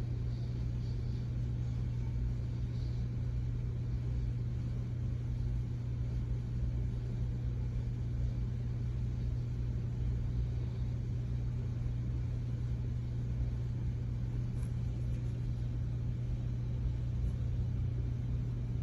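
Steady low hum with a faint rumble underneath, even in level, with no distinct events.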